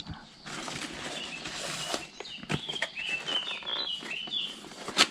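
Rustling and a few sharp knocks of boxed items being handled and set down, with a bird chirping in the background from about halfway in.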